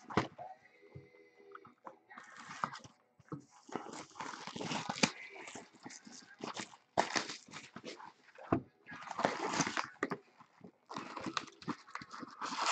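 Cardboard box of trading cards and its wrapping rustling and crinkling in the hands in irregular scratchy bursts as the box is turned over and its lid opened.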